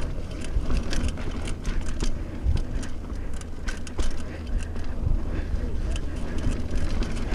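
Mountain bike rolling down a dirt singletrack, with wind rumbling on the microphone and frequent sharp clicks and rattles from the bike jolting over the rough trail.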